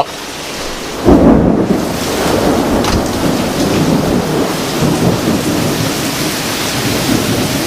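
Thunder cracking about a second in and rumbling on under heavy, steady rain from a severe thunderstorm.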